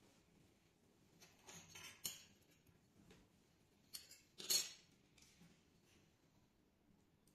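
Stamped sheet-metal fan blade and shaded-pole motor bracket clinking and scraping against each other as the blade is handled and fitted onto the motor shaft. Two short clusters of light metallic rattles, the louder one about halfway through.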